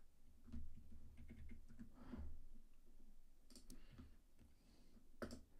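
A few faint, irregularly spaced clicks of a computer mouse and keyboard, with a couple of soft low thuds on the desk.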